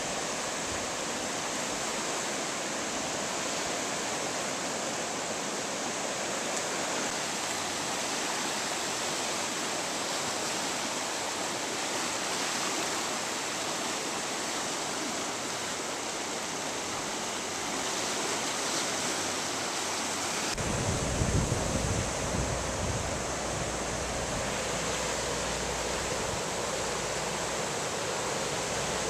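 Steady rushing of a flood-swollen river, fast water churning into white water after heavy storm rain. About two-thirds of the way through, a low rumbling on the microphone joins in.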